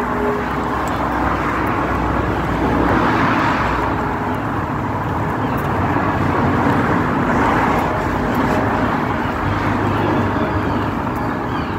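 City street traffic: a steady hiss of vehicles on the road, with cars passing and swelling louder about three and seven seconds in.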